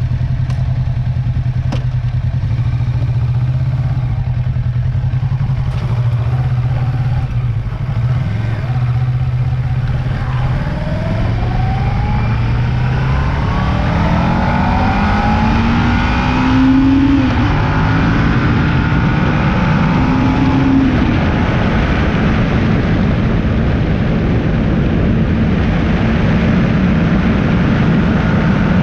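Motorcycle engine idling steadily, then pulling away about ten seconds in and accelerating through the gears, the engine note rising with each gear and dropping at each shift. It then runs on at highway speed, with road and wind noise building.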